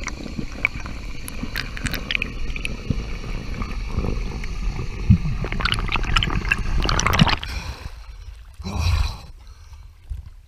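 Underwater water noise through a camera housing as a freediver ascends: a steady rushing and gurgling with scattered clicks. About seven and a half seconds in the sound turns thinner and quieter as the camera breaks the surface, with a short loud burst of noise near nine seconds.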